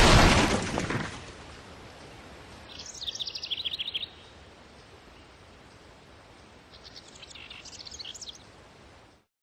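A car speeding away over dirt with a loud rush of noise that fades within the first second, then quiet open air in which a bird chirps in two quick high trills, about three seconds in and again near the end; the sound then cuts off.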